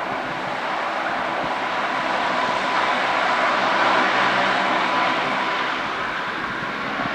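Lockheed P-3 Orion's four Allison T56 turboprop engines at takeoff power during the takeoff roll: a steady propeller drone with a high whine, growing louder toward the middle and easing a little near the end.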